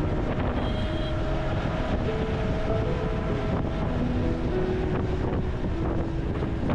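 Steady wind rushing over the microphone and road noise from a Bolero SUV driving along, with a quiet background-music melody over it.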